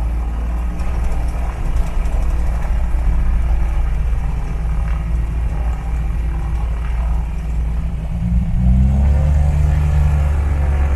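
Twin piston engines of a Piper Seneca running steadily, their propeller drone rising in pitch and getting louder about eight and a half seconds in as power is added.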